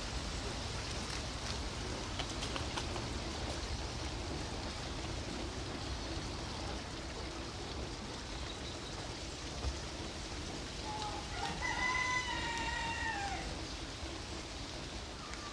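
A rooster crows once, a single drawn-out call that rises, holds and falls away, over a steady rushing background hiss.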